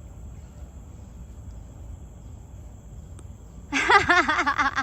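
Outdoor park ambience: a steady, thin, high insect drone over a low rumble of wind or background noise. Near the end a high-pitched voice speaks or calls out briefly.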